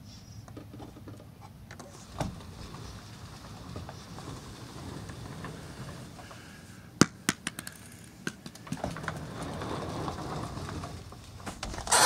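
A deer rummaging at a wooden barrel planter. Scattered clicks and knocks, a cluster of them past the middle, then a stretch of rustling and a loud knock near the end.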